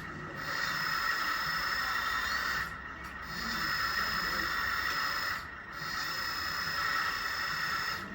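Hydraulic pump of a 1/14 scale RC backhoe loader whining steadily, easing off briefly twice before picking up again.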